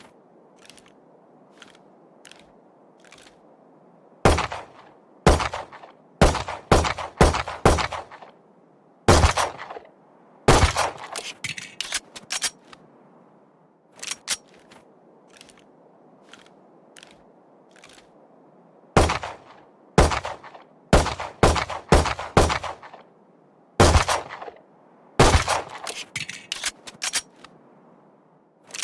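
Handgun gunshot sound effect: sharp shots fired singly and in quick runs of several, with fainter clicks in the gaps over a steady low hiss.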